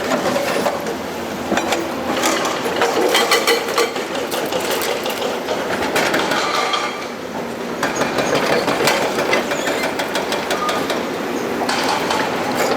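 Excavator at work: the engine runs steadily under a continuous metallic clanking and rattling, which comes in denser bursts a few seconds in, about halfway through and near the end.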